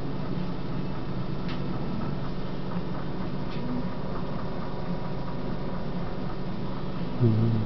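Steady low hum and hiss, with a short, louder low-pitched sound lasting about half a second near the end.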